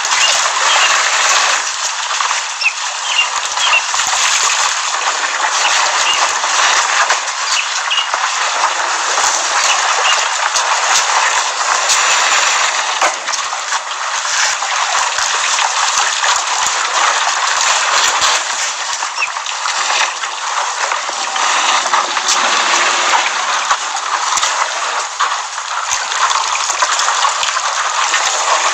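Elephants splashing in a waterhole: a steady rush of sloshing, gushing water with small scattered drips and clicks.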